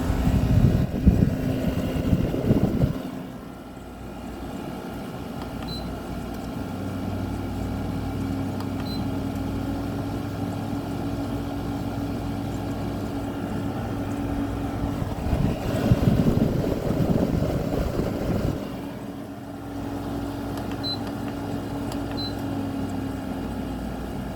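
General Electric 6,000 BTU wall air conditioner running: the steady hum of its Qingan rotary compressor, a low drone with a higher steady tone, plus the fan. Its accumulator and suction line are icing up, which the owner puts down to an overcharge. Two louder stretches of rushing noise come at the start and about two-thirds in.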